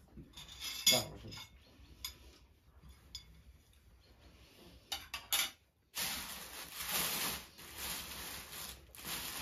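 Metal cutlery clinking and scraping against plates and a metal pot as food is served, the sharpest clink about a second in. From about six seconds in a plastic bag rustles steadily.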